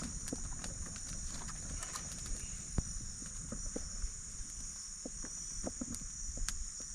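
Steady high-pitched insect chorus, with scattered light clicks and knocks.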